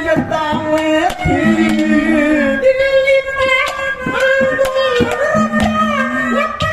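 A man singing a Haryanvi ragini into a microphone, amplified over loudspeakers, with long held and bending notes over a steady musical backing and sharp regular beats.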